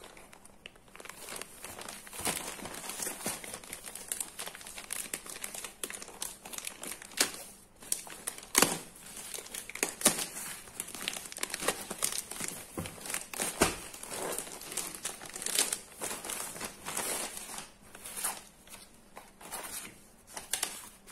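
Clear plastic packaging bag crinkling and crackling as hands handle and open it and pull a folded fabric curtain out, with irregular sharp crackles throughout.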